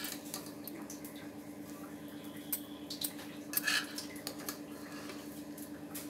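Perforated metal spoon scraping and clinking against the inside of a pressure cooker pot while fluffing cooked rice, several scrapes and light clinks mostly from the middle on. A steady low hum runs underneath.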